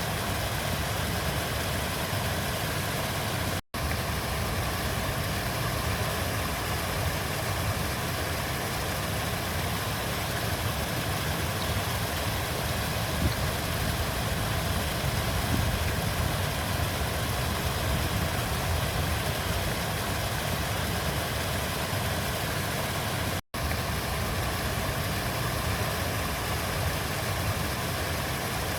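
Flowing river water, a steady rushing with a low rumble underneath. It cuts out for a split second twice, about three and a half seconds in and again near twenty-three seconds in.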